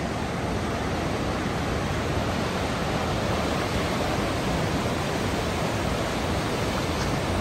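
Swollen, muddy river rushing through rapids over rocks: a loud, steady rush of whitewater.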